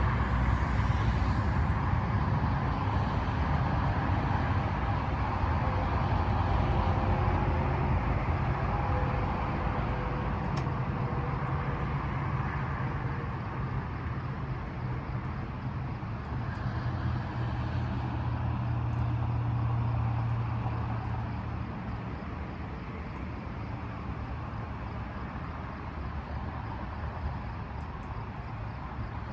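Thunder rolling from a nearby storm: a low rumble that swells and fades twice over steady background noise.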